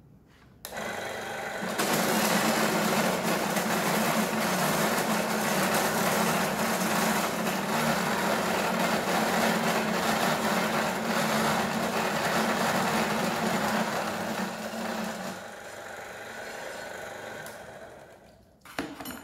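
Cold saw for metal starting up and its circular blade cutting through steel bar, a steady loud motor hum with cutting noise over it. About 15 seconds in the cut finishes and the saw runs down and fades, with a short knock just before the end.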